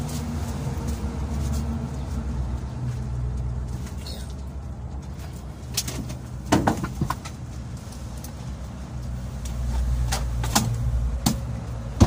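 A few knocks and clatters as the foil heat-insulating cover is fitted back over a Mitsubishi L300's under-seat engine compartment, with a last sharp knock as the seat comes back down near the end. A steady low rumble runs underneath.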